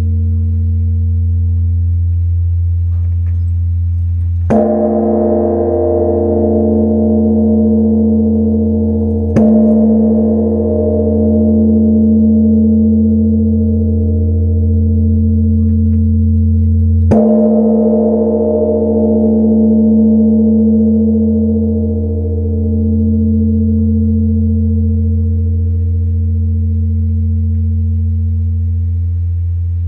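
Large bronze Korean temple bell (beomjong) struck three times with its wooden striking log. Each stroke starts a deep, long ring that hums on and slowly wavers in loudness, never dying away before the next.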